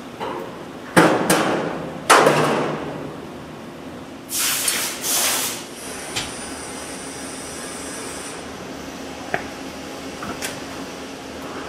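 Metal parts struck twice, about a second apart, each knock ringing on for a moment, during assembly of a stainless steel agitator's bevel-gear drive. Two short hisses follow, then a few light ticks over a steady low machine hum.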